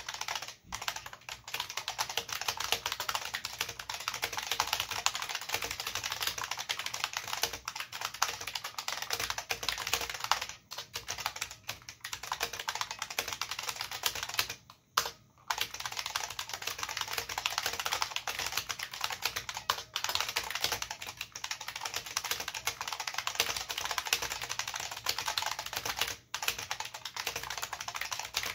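IBM Model F122 keyboard with capacitive buckling spring switches and PBT keycaps, typed on fast and steadily. The key clicks come thick and continuous, broken by a few short pauses, the longest about 15 seconds in.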